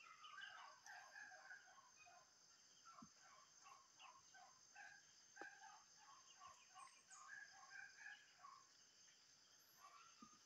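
Faint outdoor ambience of many short bird chirps and calls scattered throughout, over a steady high insect drone, with a few faint clicks.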